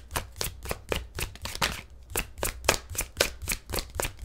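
A deck of tarot cards being shuffled by hand, the cards slapping together in a steady run of quick clicks, about four or five a second.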